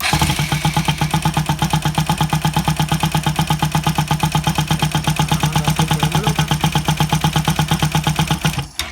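Bajaj Rouser NS200 single-cylinder engine turned over on its electric starter with the spark plugs disconnected, so it cranks without firing: a steady, rapid pulsing of about seven beats a second over the starter's hum, cutting off abruptly near the end. The extra mechanical noise is because the engine's cover is off; the owner judges the engine to be in perfect condition.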